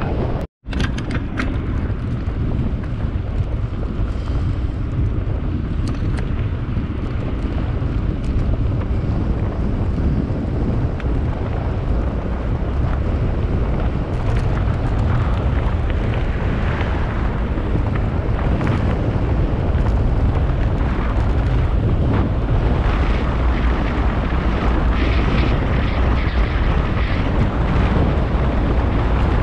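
Wind buffeting the microphone: a loud, steady low rumble with a rushing hiss, broken by a momentary dropout about half a second in.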